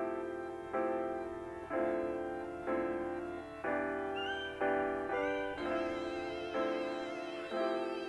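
Background music: an instrumental track of keyboard-like chords, each struck sharply and fading, changing about once a second.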